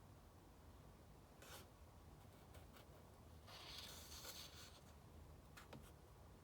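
Faint paper rustle of a book page being turned, with a few soft brushes and light ticks of hands on paper before and after.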